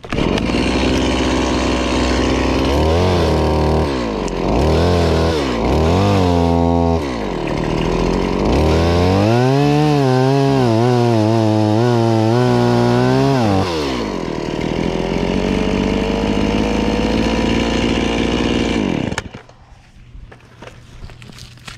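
Chainsaw running, its revs climbing and dropping again and again as it works through tree limbs, then stopping abruptly about nineteen seconds in.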